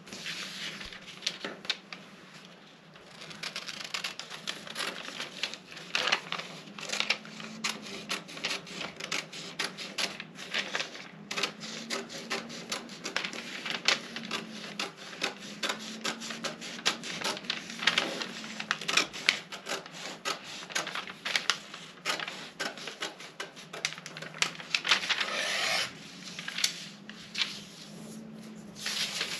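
Scissors cutting through a paper sewing pattern: many quick, irregular crisp snips and scraping paper noise, over a faint steady low hum.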